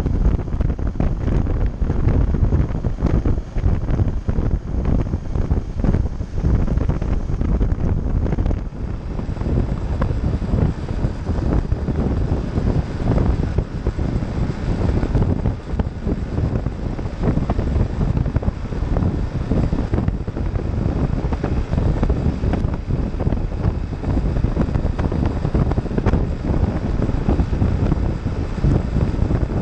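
Wind rushing and buffeting over the camera microphone of a BMW G650GS motorcycle riding at road speed, with the bike's engine and road noise under it.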